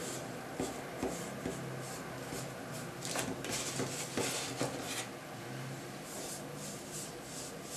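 A cloth rubbing finish oil over a walnut wooden cup, making repeated soft scuffing strokes, with a few light knocks as the cup is turned in the hands. The strokes come thickest about three to five seconds in.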